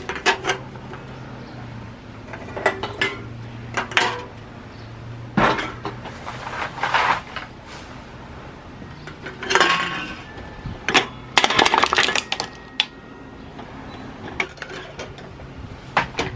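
Irregular clinks and clatters of hard objects being handled, some single and some in quick clusters, over a steady low hum.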